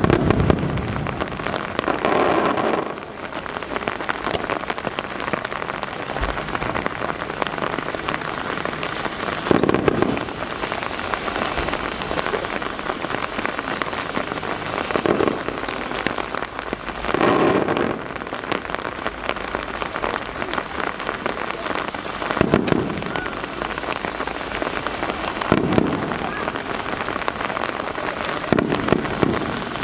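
Steady rain pattering, with muffled fireworks booms every few seconds.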